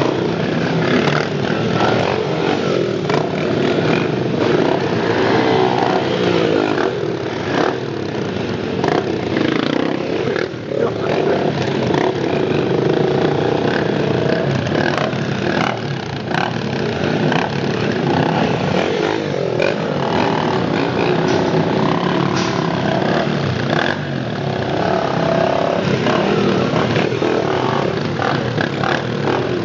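Several Honda CRF single-cylinder four-stroke dirt bikes running and revving.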